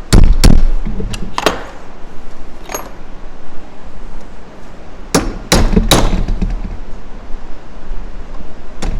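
Hammer striking a steel punch to drive the pin out of a go-kart roller chain link, one sharp metallic blow at a time in uneven groups, about nine strikes in all.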